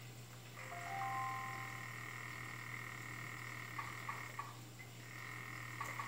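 African clawed frog calling underwater: a call that sets in about half a second in and runs for about four seconds, with a few separate clicks toward its end, then starts again shortly before the end.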